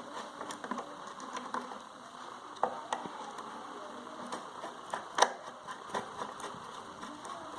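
Screwdriver tightening screws into a sewing machine's metal body: scattered small metallic clicks and scrapes, the sharpest a little after five seconds in.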